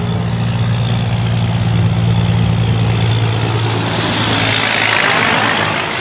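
Diesel semi-trailer truck engine running with a steady low hum as the truck drives past close by, its tyre and road noise swelling about four to five seconds in.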